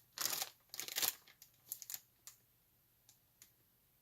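Rustling and light clicks from the kit's solder and its packaging being handled: a short rustle at the start, a cluster of clicks about a second in, then a few scattered soft ticks that die away.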